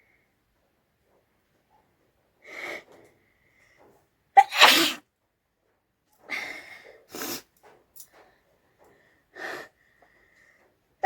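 A person sneezing hard about four and a half seconds in, one of a run of deliberately provoked sneezes. Quieter breathy noises come before and after it, and another sneeze starts right at the end.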